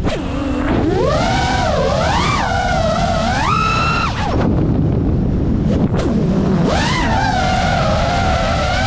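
FPV drone's electric motors and propellers whining, the pitch rising and falling sharply with the throttle. The whine drops away about four seconds in and climbs back near seven seconds, over a steady low rumble of wind on the onboard camera's microphone.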